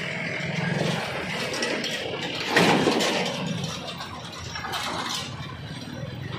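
Passing street traffic: motorcycle engines and a small goods truck driving by close, under a steady engine hum. A loud, noisy pass-by starts about two and a half seconds in and fades over the next second or two.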